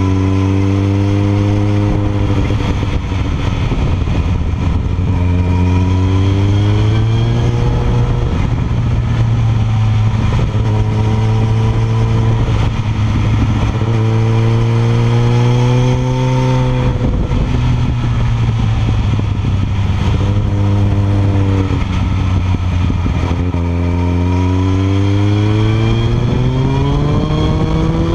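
Kawasaki ZX-14R's inline-four through a Yoshimura R77 exhaust, heard close to the silencer, accelerating hard up a twisty road. The exhaust note rises in pitch several times as the bike drives out of the bends, holds steady for stretches, and drops back between them.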